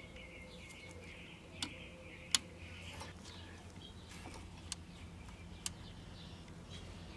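A switch on a vintage radio-phonograph clicking five times, the loudest a little over two seconds in, over a faint steady low hum. Birds chirp in the background, most in the first second or so.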